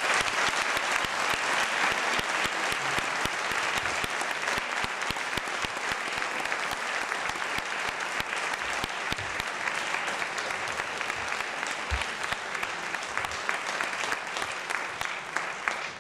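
Audience applauding: a long round of dense clapping that slowly eases and stops at the very end.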